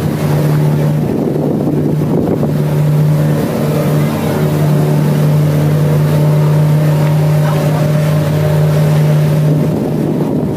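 Engine of a river cruise boat running steadily under way, a constant low drone with a haze of water and wind noise.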